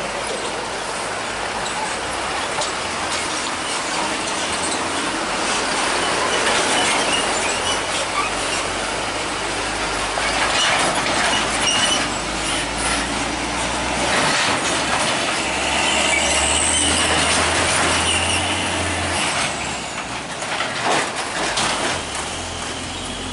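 Train passing, a steady rolling rumble with wheels clattering over the rails and a brief high squeal about two-thirds of the way through.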